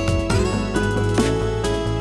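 Background music: a gentle tune of held notes over a steady bass, with plucked guitar-like notes starting every half second or so.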